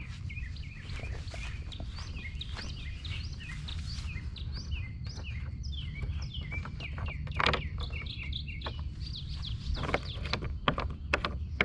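Many small birds chirping, a rapid string of short falling chirps, with a few sharp clicks and knocks from hands unscrewing the plastic mounting knobs of a kayak's quick-release seat frame, the clearest ones in the second half.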